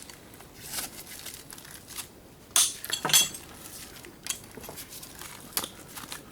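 Small metal parts from a dismantled electric can opener clinking and clattering as they are handled, in scattered sharp clicks. A louder run of ringing clinks comes about halfway through.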